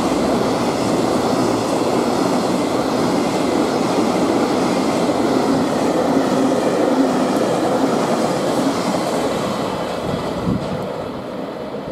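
Container freight train running through at speed: a steady, loud rumble of wheels and wagons on the rails. It fades over the last few seconds as the tail of the train draws away.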